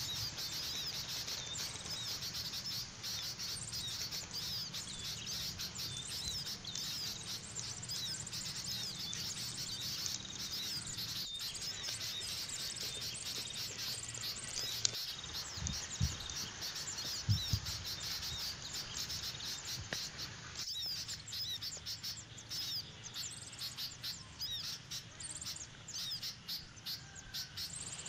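Many birds chirping all through, a busy high-pitched chorus of short calls. A few low thumps sound near the middle.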